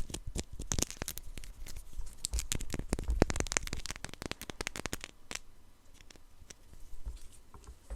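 Crackling and clicking of blind-box packaging and plastic being handled close to the microphone: a dense run of sharp crackles that thins out after about five seconds into a few scattered clicks.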